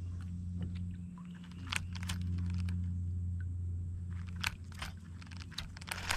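Baitcasting reel being cranked to bring the line in, with scattered sharp clicks over a low steady hum.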